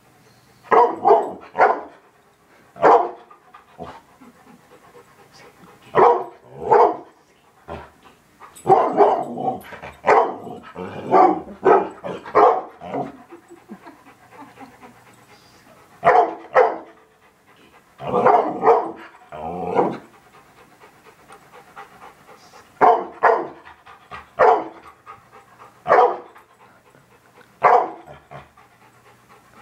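A dog barking at a television, in loud volleys of one to several sharp barks with pauses of a few seconds between them. The longest run of barks comes between about nine and thirteen seconds in.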